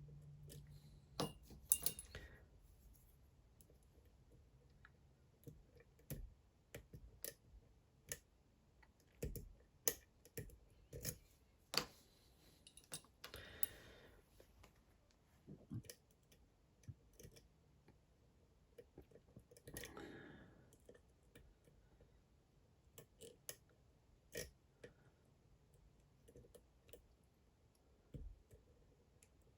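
Faint, irregular metallic clicks and a couple of brief scrapes from a lock pick working the two rows of pins in a Dom IX Twinstar cylinder under tension, as the pins are lifted and set one by one.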